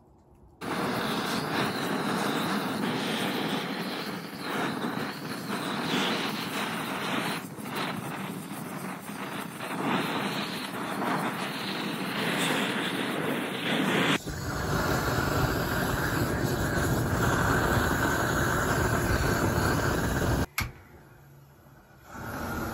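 GrillBlazer Grill Gun propane torch on a 1-pound propane cylinder, blasting a steady, noisy jet of flame. The sound changes abruptly about two-thirds of the way through to a deeper rush, drops out briefly near the end, and then starts again.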